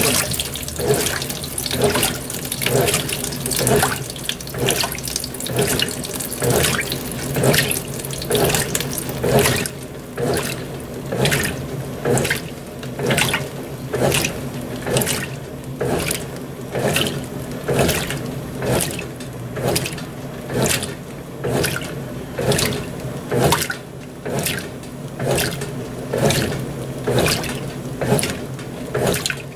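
Brastemp BWT12 top-loading washing machine on its delicates cycle: water runs into the tub while the agitator sloshes the wash back and forth. About ten seconds in the inflow stops and the sloshing goes on alone, about once a second.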